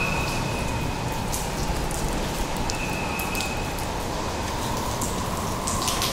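Heavy hurricane rain pouring down and running off a roof edge: a steady rushing hiss with scattered drips and splashes.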